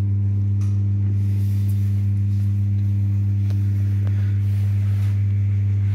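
Home egg incubator running, its fan motor giving off a loud, steady electrical hum with overtones.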